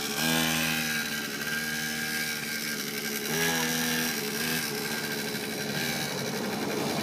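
Small petrol engine of a kids' mini dirt bike running under way, its pitch dipping and picking back up as the throttle is eased off and on, near the start and again about three and a half seconds in.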